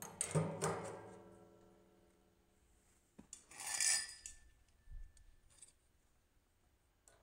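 A stainless steel sink leg tube clanks twice against its socket on the upturned stainless sink, and the sink rings and fades over about a second and a half. About three seconds in comes a click and a short scraping rasp of metal, then a few light taps.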